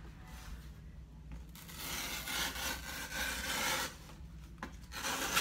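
Cardboard tear strip being ripped along the top of a shipping box. One long rip of about two seconds starts a couple of seconds in, then a shorter rip comes near the end.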